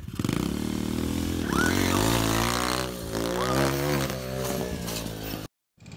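Small pit bike engine revving hard, its pitch rising and wavering as the throttle is worked, then cutting off abruptly near the end.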